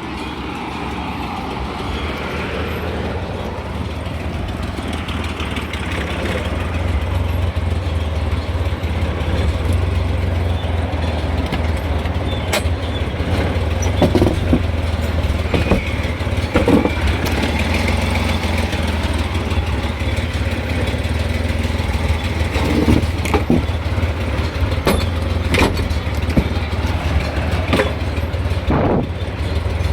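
Multicab's 12-valve engine idling steadily, with a few sharp clicks or knocks now and then over the running engine.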